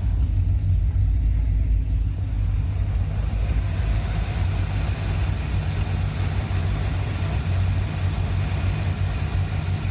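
1981 Corvette's 350 V8 idling, with the owner taking it to be running rich. A few seconds in the sound changes audibly and turns hissier as the carburetor's idle screw is backed off another half turn.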